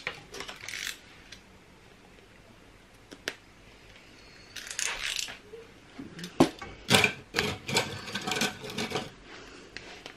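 Craft knife scraping and clicking as it trims the overhanging foam strip along the edge of a plastic vinyl squeegee, in short bursts of scratchy strokes, busiest and loudest in the last few seconds.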